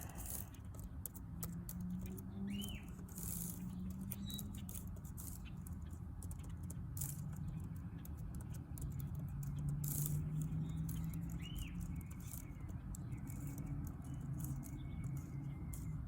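Irregular clicking of a computer keyboard being typed on, while an email, name and password are entered, over a low steady hum. A bird chirps briefly a couple of times.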